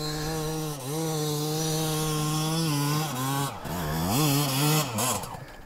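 Dirt bike engine held at high revs as it climbs a loose slope, steady for a few seconds, then dropping and surging again before falling away near the end.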